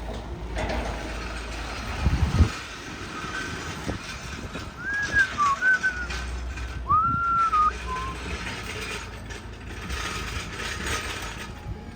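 Several short whistled notes that slide up and down, about five to eight seconds in, over a steady low rumble and hiss, with a single thump early on.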